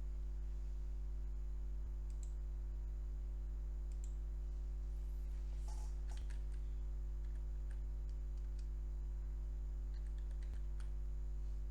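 Scattered computer mouse clicks and key taps, a few at a time, over a steady low electrical hum.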